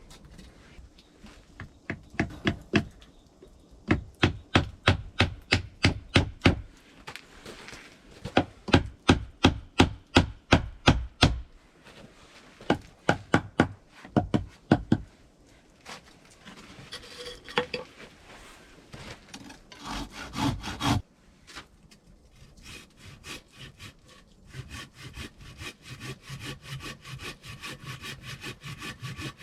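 Hand saw cutting through wood in runs of steady back-and-forth strokes, about three a second, with short pauses between runs. Near the end the strokes become faster and lighter.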